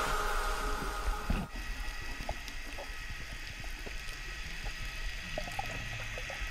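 Faint muffled underwater ambience picked up by a camera in a dive housing: a low steady water hiss with scattered soft clicks.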